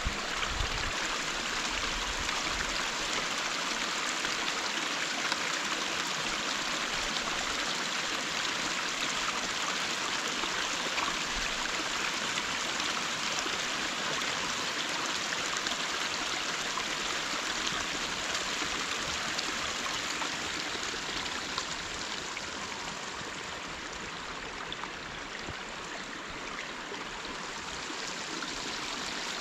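Water running steadily through a gap torn in a beaver dam, a continuous stream-like flow, a little fainter for a few seconds near the end.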